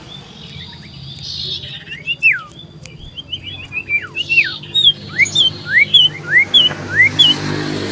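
Iora (cipoh) singing loudly: a series of clear whistled notes, about two a second, starting about two seconds in. The earlier notes slide down in pitch and the later ones slide up.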